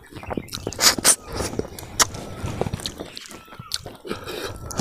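Close-up eating sounds of a person working through a cooked katla fish head with his fingers: irregular wet smacks, sucks and chewing on the fish meat and bones.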